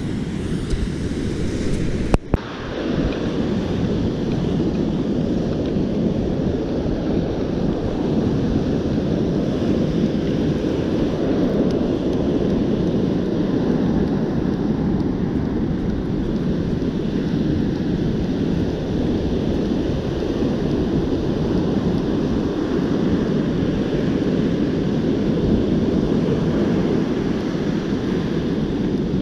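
Steady rush of wind on the microphone mixed with the wash of surf breaking on a sandy beach, with one sharp click about two seconds in.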